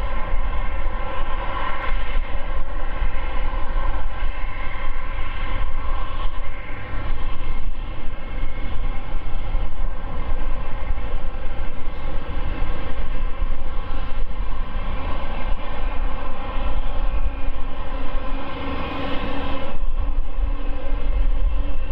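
The GE GEnx turbofans on the starboard side (engines 3 and 4) of a Boeing 747-8F spooling up after start: a loud, steady jet-engine sound, several steady tones over a deep rumble. Shortly before the end the higher hiss drops away and a lower steady hum comes in.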